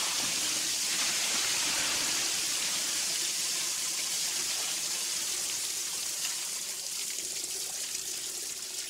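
Water gushing from a broken water tank and pouring down into a car's cabin, splashing over the driver; a steady rush that gradually eases toward the end.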